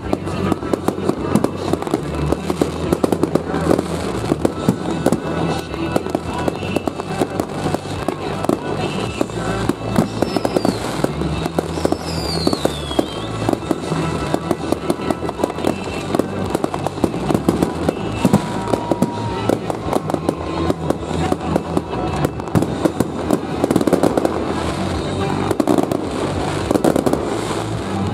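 Aerial fireworks display: a dense, continuous barrage of shell bursts, bangs and crackling, with a high falling whistle about twelve seconds in. Music plays underneath.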